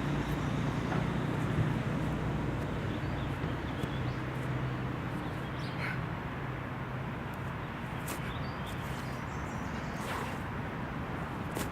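Outdoor background of a park: a steady low hum like distant traffic, with a few faint brief sounds over it.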